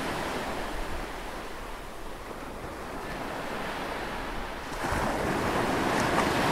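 Steady rushing wash of ocean waves and surf, growing louder about five seconds in.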